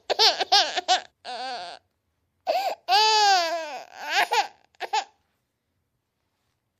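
A high-pitched wordless voice, laugh- or cry-like: a quick run of short syllables, then a longer sound whose pitch swells up and falls back about three seconds in. It stops about five seconds in.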